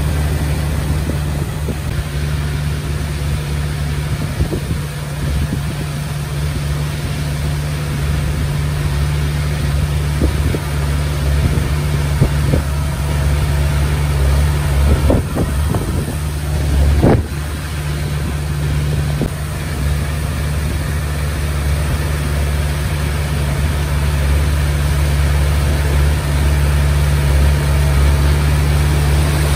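Komatsu D20P bulldozer's diesel engine running steadily under load while it pushes stones. A few sharp knocks come about halfway through, one louder than the rest.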